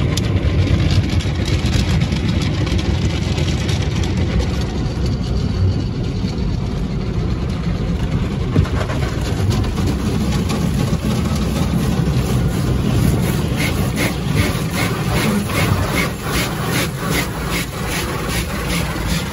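Automatic car wash heard from inside a truck cab: a steady low rumble with water spraying against the windshield and body. From about halfway, a rapid regular beating, about two or three strokes a second, joins in.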